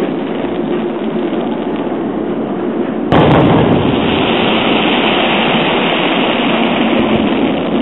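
Aerial firework shell bursting with a sudden loud boom about three seconds in, its noise carrying on steadily afterwards; before it, only steady background noise.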